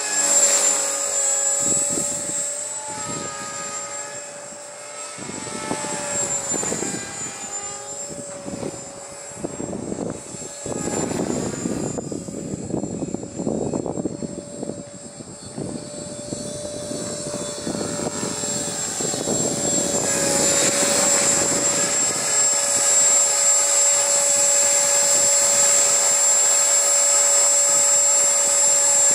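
Walkera V450D03 electric RC helicopter in flight: a steady rotor hum with a high, thin motor whine above it. Gusts of rushing noise break in during the middle, and the helicopter grows louder over the last third.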